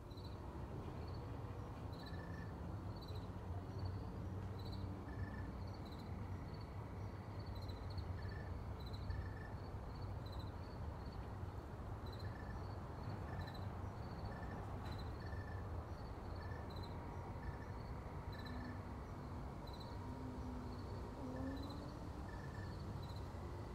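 Faint rural ambience of insects chirping. Short high chirps repeat about twice a second, with a lower chirp every second or so, over a low steady rumble.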